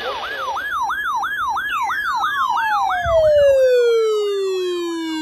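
Electronic siren wailing in a fast repeating falling sweep, about three sweeps a second. About two seconds in, a second tone with several overtones joins it and glides steadily downward as the siren winds down.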